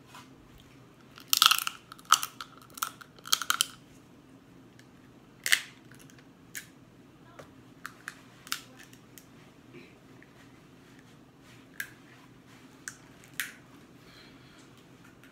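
Mukbang eating sounds from a seafood boil: sharp crackles and clicks of food being peeled and handled in a plastic boil bag, along with chewing. A dense run of crackles comes in the first few seconds, then scattered single ticks.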